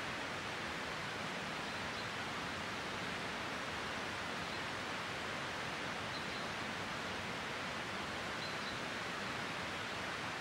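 Steady, even rushing noise of outdoor ambience, with a few faint, short high notes over it.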